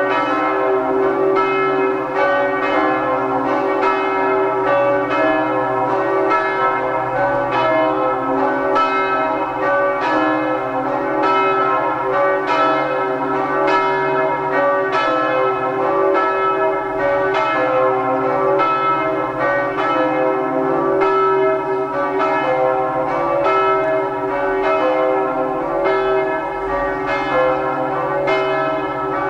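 Several church bells ringing together in a continuous peal, quick overlapping strokes over a lasting hum of bell tones.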